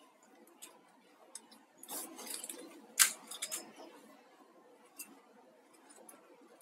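Soft rustling and scattered clicks of plastic fish wire being braided by hand and pulled tight, with the sharpest click about three seconds in.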